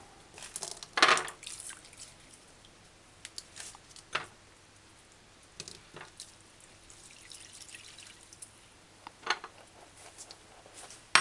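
Hands rinsing vegetables in a small bowl of water: scattered splashes and drips, a second or more apart, the loudest about a second in.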